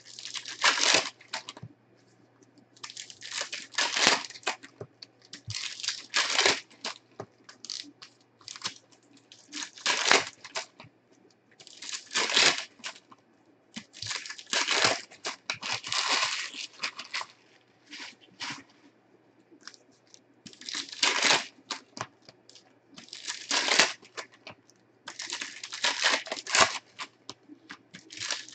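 Panini Prizm retail foil card packs being torn open one after another, the wrappers crinkling and ripping in repeated bursts every couple of seconds.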